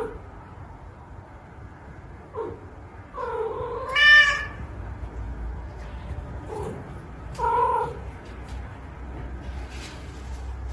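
A cat meowing four times. The loudest is a long, drawn-out meow that rises in pitch about four seconds in.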